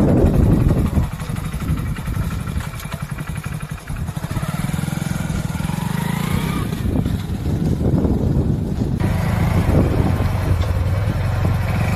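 Small commuter motorcycle's engine running as the bike rides along a road: a steady low drone with its firing pulse audible, louder for about the first second.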